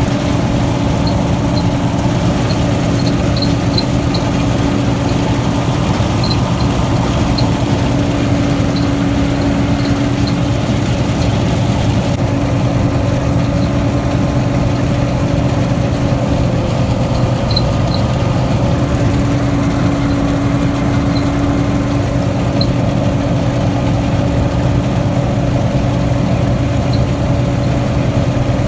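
A heavy farm machine's engine running steadily, with a constant hum and faint light ticks over it.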